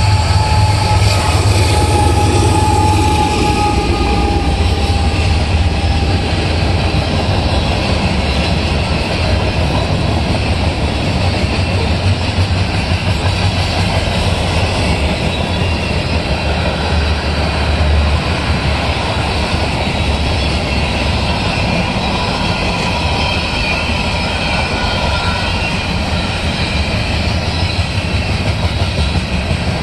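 Freight train passing close by. Union Pacific diesel locomotives rumble past in the first few seconds. Then a long string of tank cars and covered hoppers rolls by with steady wheel-on-rail noise and clickety-clack.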